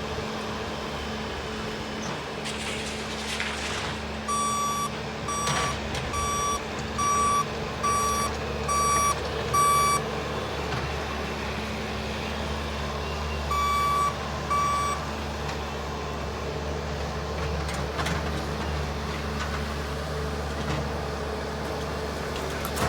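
Skid loader engine running steadily while its backup alarm beeps as the machine reverses: a run of seven evenly spaced beeps a few seconds in, then two more midway.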